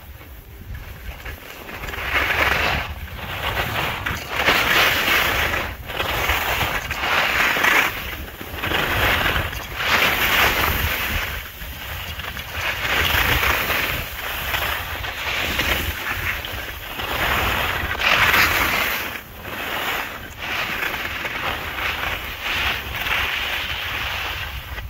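Sliding down a groomed slope, edges scraping and hissing over packed snow in a run of turns, a surge of hiss every second or two, over a low rumble of wind on the microphone.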